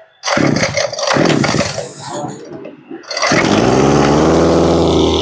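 Small 25cc two-stroke Robin brush-cutter engine being pull-started: about three seconds of cord pulls and sputtering, then it catches a little past halfway and runs at a steady idle.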